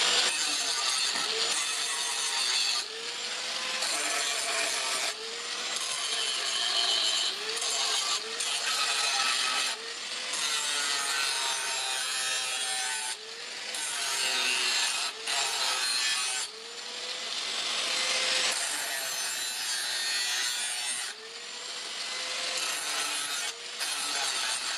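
A hand tool rasping in long, even back-and-forth strokes, about one every second and a half, each with a faint rising squeal.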